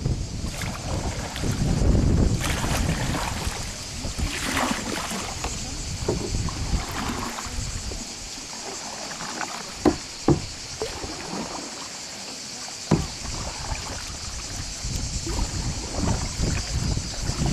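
Canoe paddles dipping and splashing in river water alongside the boat, over a steady hiss of moving water. Wind rumbles on the microphone for the first few seconds, and three sharp knocks come through, two close together about ten seconds in and one near thirteen.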